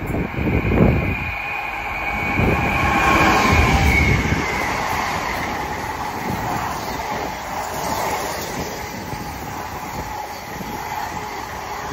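Class 66 two-stroke V12 diesel locomotive passing at speed with a container freight train, loudest as it goes by about three seconds in, then the steady rumble and clatter of the container wagons rolling past.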